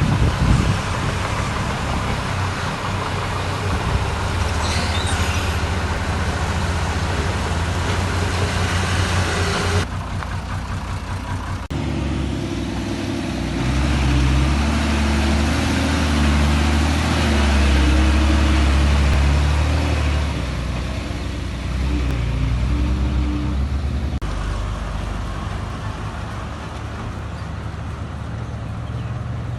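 Heavy diesel machinery engines running under load, a strong low drone that rises and falls. The sound changes abruptly about ten, twelve and twenty-four seconds in.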